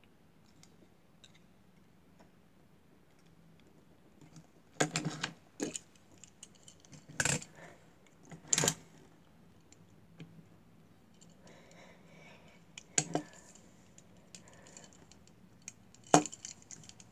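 Small die-cast toy cars being handled, knocking against each other and set down on a wooden table top. A handful of sharp clacks and rattles are scattered through it, the loudest near the end, with faint handling rustle between.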